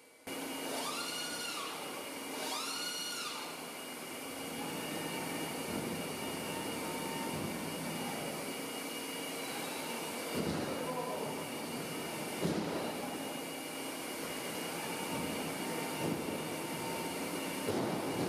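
Large CNC milling and boring machine running under power: two short whines that rise, hold and fall, typical of servo axis drives moving, then a steady mechanical running noise with a few dull knocks.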